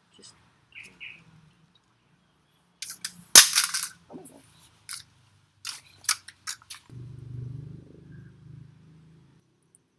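Handling noises from clearing soil off a potted plant's roots: a run of sharp clicks and snaps, the loudest a single crack about three and a half seconds in, then a low rustle for about two seconds.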